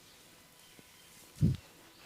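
A single dull thump of a hand striking the body during a massage, about one and a half seconds in, over a faint background.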